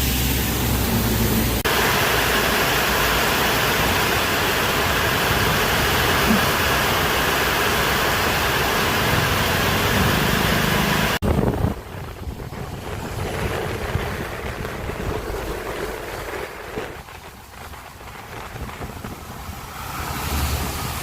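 Wind rushing over the microphone with the running noise of a moving road vehicle. It cuts off abruptly about eleven seconds in to a quieter stretch of the same kind of noise.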